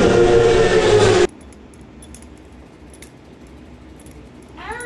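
An engine running steadily, cut off abruptly about a second in; after a quiet stretch, a cat meows once near the end.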